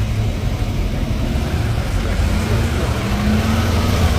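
A motor vehicle's engine running close by: a steady low rumble with a faint hum that rises slightly about two seconds in.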